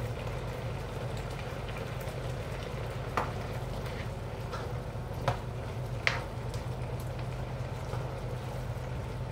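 Coconut-milk sauce simmering in a nonstick wok, with a plastic spatula stirring through it and knocking against the pan three times, the sharpest a little after six seconds in.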